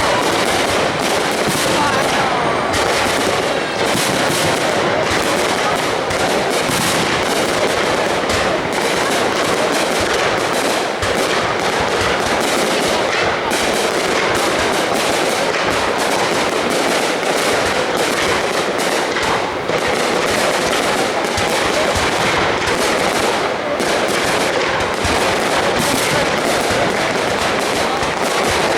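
Fireworks display: a dense, unbroken barrage of rapid bangs and crackling bursts.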